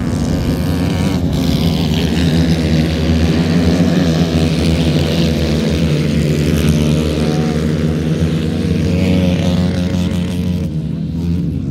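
A pack of grass-racing karts with 125 cc Honda CBR125 single-cylinder four-stroke engines racing together, several engines running hard at once. The sound swells a few seconds in as the pack passes close, then eases as the karts pull away.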